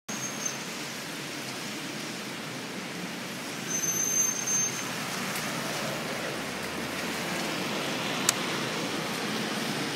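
Steady hiss of a wet street, with passing traffic and no engine running yet. A single sharp click comes about eight seconds in.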